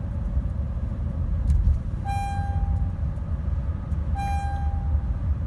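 Honda Ridgeline's in-cabin warning chime sounding twice, about two seconds apart, each tone fading over about a second, over steady road noise while driving. The chimes come with the intermittent electrical fault that the dealer could not reproduce and that left no error codes.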